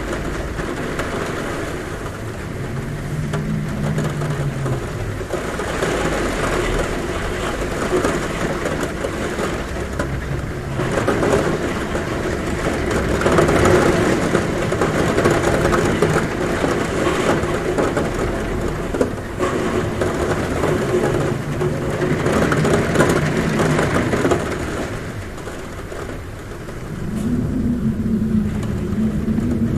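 Heavy rain drumming on a roof, a steady rushing that swells and eases. A low wavering hum of wind at the window comes in around the start and again near the end.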